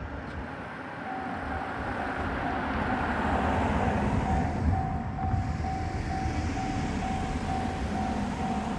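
Japanese railroad crossing warning bell starting about a second in, a single tone clanging about twice a second, over the rumble of a train that grows louder toward the middle.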